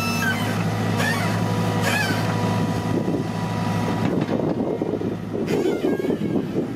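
Diesel engine of a CAT 312 excavator working a drilling attachment, running steadily and turning rougher after about four seconds. A few brief high-pitched calls sound over it near the start and again near the end.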